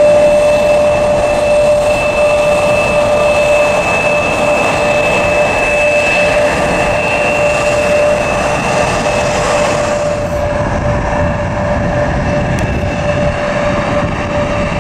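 Embraer ERJ-175's twin turbofan engines at taxi power as the jet rolls past: a steady whine with two held tones over a broad rush. The high hiss dulls about ten seconds in as the jet moves away.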